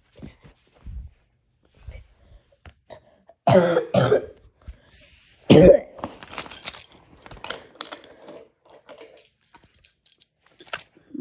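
Three short coughs in quick succession, followed by light clicking and clattering as wooden toy train cars and track pieces are handled.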